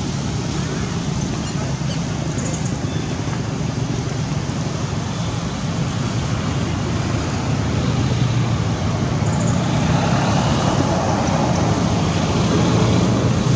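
A steady low rumble and hiss like road traffic, growing slightly louder about eight seconds in.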